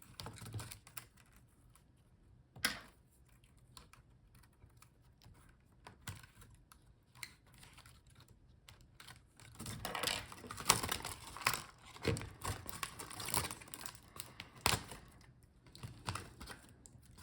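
Plastic clicking and rattling from a laptop keyboard being handled as its cable is disconnected and it is lifted out. There is a single sharp click near 3 s, then a dense run of clicks and clatter from about 10 s to 16 s.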